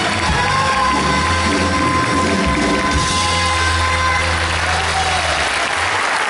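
Live band playing the closing bars of a song, bass and a held chord sustaining and then ending about five and a half seconds in, while audience applause swells over the second half.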